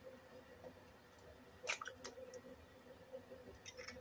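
Eggshells cracking and crackling as fingers break eggs open over a bowl: a short cluster of faint clicks about a second and a half in, another click just after two seconds, and small ticks near the end.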